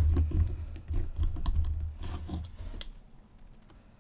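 Small plastic bottles and a dropper cap handled on a wooden tabletop: a quick run of clicks, taps and low bumps as the dropper is put back into the ink bottle and the bottles are set down and picked up, dying away about three seconds in.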